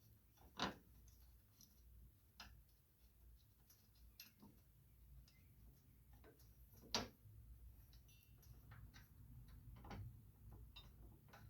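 Faint, scattered metal clicks and taps from hand work on a steering rod's bolt and nut, with two louder clicks, one about half a second in and one about seven seconds in.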